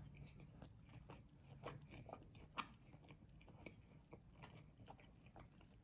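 A person chewing and biting food close to the microphone: faint, irregular wet clicks and small crunches.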